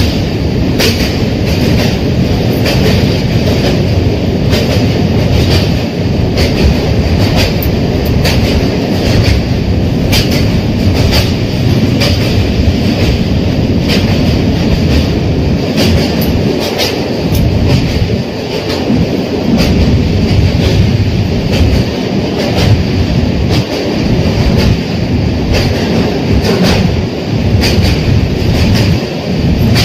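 Passenger train running along the track: a steady loud rumble of wheels on rails, with frequent irregular clicks as the wheels pass over rail joints.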